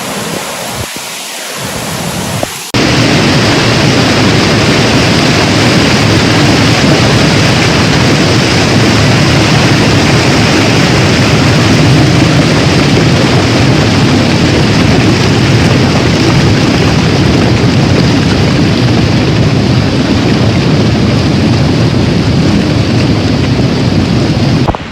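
Cyclone-strength wind and heavy rain: a loud, steady rush of noise with a heavy low rumble from wind hitting the microphone. It cuts in abruptly a few seconds in and stops suddenly near the end.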